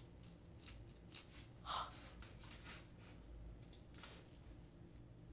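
Quiet room with a few faint, short clicks and light handling noises from hands touching a cake on its board, and one brief soft sound near two seconds in.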